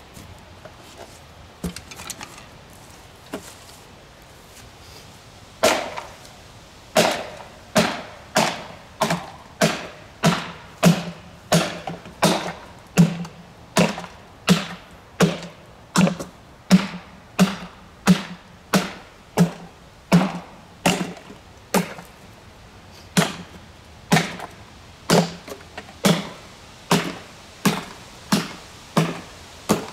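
Golf iron repeatedly striking the top of a subwoofer cabinet, smashing it open. After a few light knocks, steady hard hits start about six seconds in, roughly three every two seconds, each with a hollow low ring from the box.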